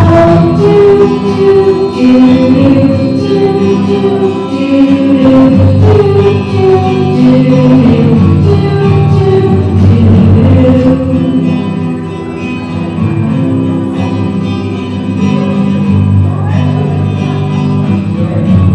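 Live singing accompanied by a strummed acoustic guitar.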